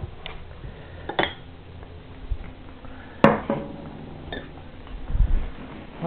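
Ceramic food bowls knocking on a wooden table a few times, the loudest knock about three seconds in with a short ringing after it, and a low thump near the end.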